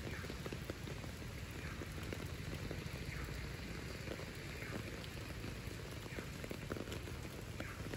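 Steady rain falling on a wet city street: an even hiss scattered with many small drop ticks.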